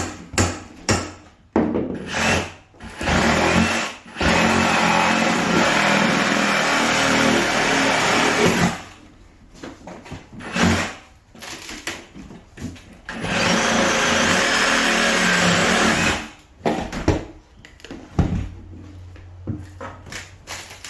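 Power saw cutting through the floor: a couple of short starts, then two long cuts of several seconds each. A few sharp knocks at the start and between the cuts.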